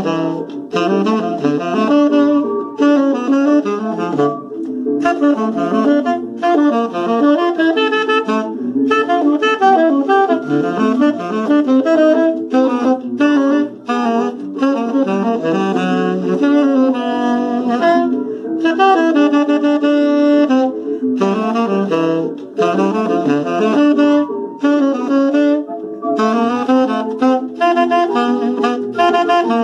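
A tenor saxophone playing a choro melody: a quick, lively run of notes with short breaks for breath.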